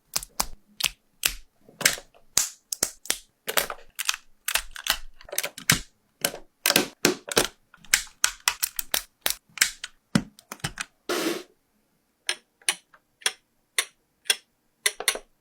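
Plastic Lego bricks being handled and snapped together: a run of irregular sharp clicks and taps with short scrapes, and one longer rattling scrape a little past the middle. The clicks come sparser near the end.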